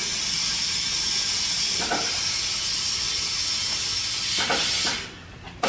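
Compressed air hissing steadily from an air hose into a newly mounted tire as it is inflated. The air flow cuts off about five seconds in.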